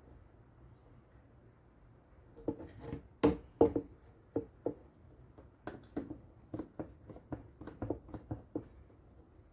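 A run of light clicks and knocks from small hard objects being handled and set down on a workbench, starting about two seconds in and coming irregularly, several a second, loudest near the start of the run.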